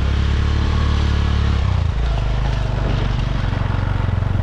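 Motorbike engine running steadily, its note shifting about two seconds in.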